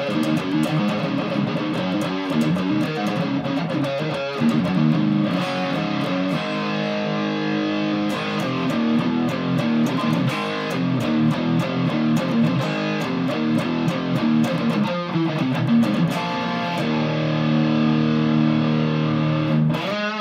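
Epiphone Explorer electric guitar on its bridge pickup, played through a Cascade Pedals Black Cat Overdrive with the gain at maximum into a Fender Supersonic's clean channel: very thick, very chunky overdriven chords and riffs. It ends on a held chord that stops just before the end.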